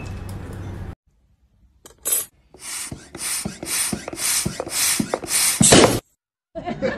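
Quick repeated scraping strokes, about three a second, as a handheld tool is worked against a corrugated cardboard cat scratcher, with a short louder squeal near the end.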